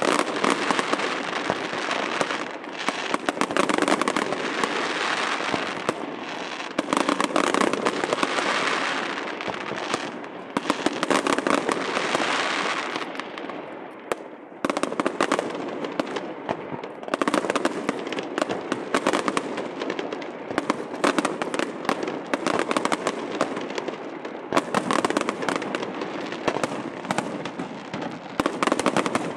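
Fireworks display: aerial shells bursting in a dense, continuous barrage with crackling. It eases briefly about halfway through and then builds again.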